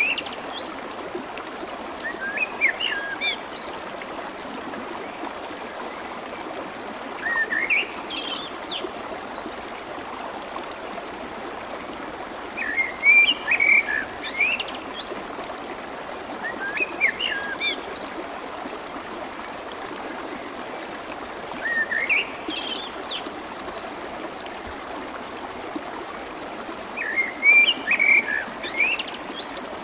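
Clear stream water flowing swiftly with a steady babble, with a bird's short chirping song phrases coming in about every five seconds over it.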